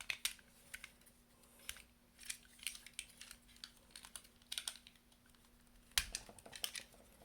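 Hard plastic toy parts being handled, pulled apart and pressed together: scattered light clicks and rattles, with a sharper knock about six seconds in.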